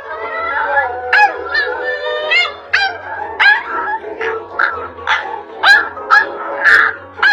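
A puppy yapping repeatedly in short, high-pitched barks, about two a second, over background music.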